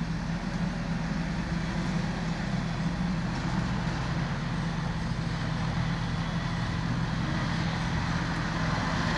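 Diesel engines of heavy construction machinery running steadily, a continuous low hum.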